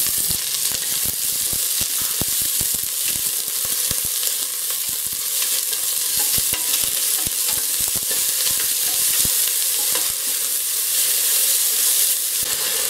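Sliced onions sizzling in hot coconut oil in a steel pressure cooker, with a steady hiss and many short clicks and scrapes of a wooden spatula against the pot as they are stirred.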